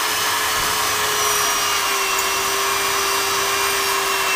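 Electric drill boring into a plastered masonry wall, its motor running with a steady whine.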